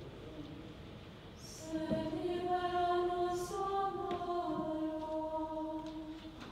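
Liturgical chant sung during Mass in long held notes that step from pitch to pitch, growing louder about two seconds in and fading near the end.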